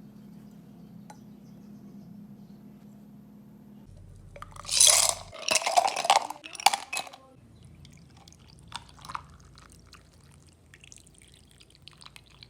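Liquid poured briefly into a glass, loud for about two seconds from around the middle, followed by a few small clinks and taps.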